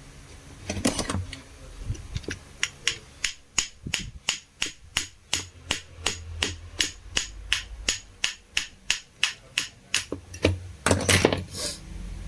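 A hammer tapping repeatedly on metal drill parts, a steady run of about three light blows a second, with a short clatter of handling near the start and again near the end. The tapping is to work the drill's stuck armature and bearing loose.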